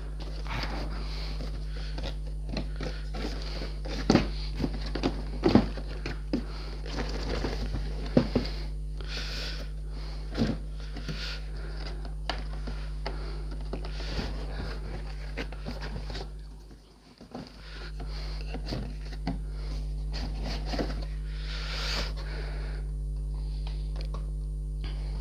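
Cardboard model-kit box being handled and opened: scattered light knocks, scrapes and clicks, with plastic bags of kit parts rustling. A steady low hum runs underneath and briefly drops out about two-thirds of the way through.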